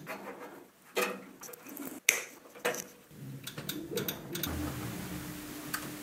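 Light clicks and knocks of hands handling the metal gantry and fittings of a laser engraver, the sharpest click about two seconds in. A low steady hum sets in near the end.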